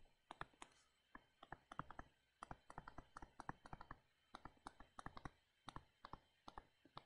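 Faint stylus tip tapping and clicking on a tablet screen during handwriting, an irregular run of short clicks, several a second.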